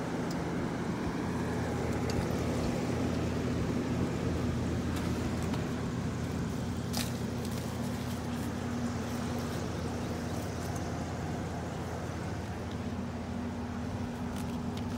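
Steady low motor hum, with a single sharp click about seven seconds in.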